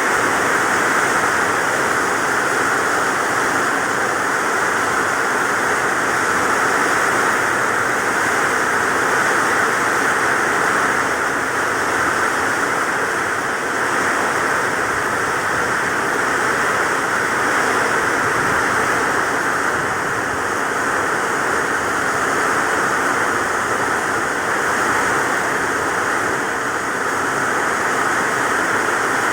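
Heavy rain falling steadily, a loud, dense, even hiss with no let-up.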